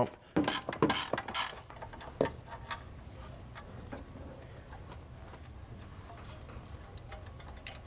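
A ratchet wrench clicking in short irregular runs as bolts on the back of a power steering pump are loosened, busiest in the first few seconds, then mostly quiet apart from a sharp click near the end.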